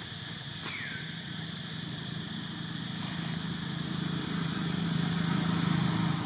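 A low motor hum that grows steadily louder, over a steady high-pitched drone, with one short descending whistle about a second in.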